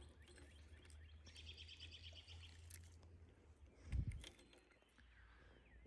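A bird gives a short, rapid, high trill over quiet outdoor background. About four seconds in there is a dull low thump.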